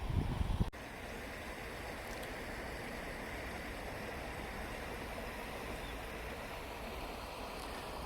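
Wind buffets the microphone in low gusts for the first moment, then the sound cuts to a steady rush of flowing water.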